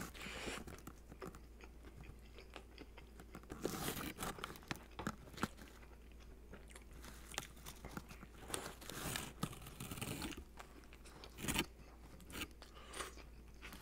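Close-up biting and chewing of a toasted Italian sub sandwich: crunches of the toasted bread crust with chewing in between, several louder crunches standing out.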